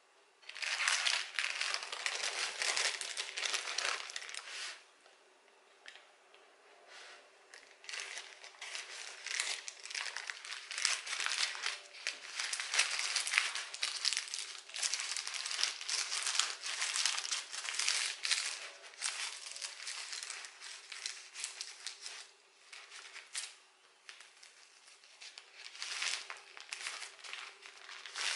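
Baking paper and plastic cling film crinkling in irregular bursts as a sponge roll cake is rolled up and wrapped by hand, over a faint steady hum.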